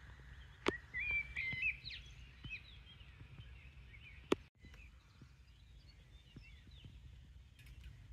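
Songbirds singing in short chirping, warbling phrases, loudest about a second in and fading after a few seconds, over a steady low outdoor rumble. Two sharp ticks, one near the start and one about halfway.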